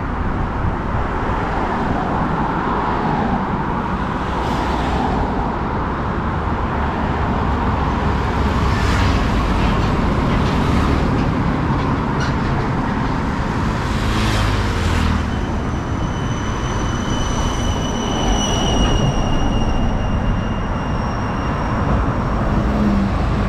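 Steady highway traffic noise as container trucks, cars and motorbikes pass one after another, engine and tyre noise swelling with each passing vehicle. For a few seconds past the middle a faint high tone falls slightly in pitch.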